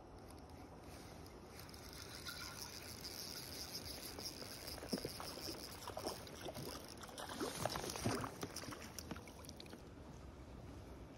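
A hooked trout splashing at the water's surface as it is reeled in toward the landing net. There is a sharp splash about halfway through and a louder cluster of splashes a few seconds later, over the whir of a spinning reel being wound.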